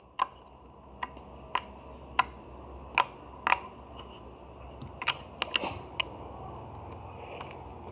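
A series of sharp, sticky clicks and pops at uneven intervals, about one every half second to a second, typical of homemade slime being poked, squeezed and stretched.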